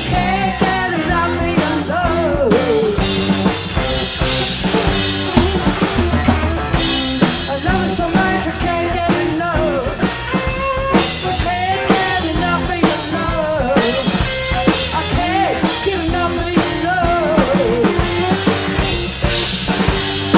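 Rock band playing an instrumental passage: a drum kit keeps a steady beat under a lead melody with bending notes.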